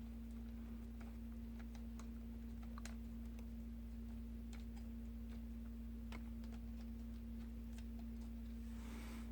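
Light, irregular clicks and ticks of a small screwdriver working the tiny screws that hold a laptop's cooling fan, over a steady low hum. A short rustle of handling comes near the end.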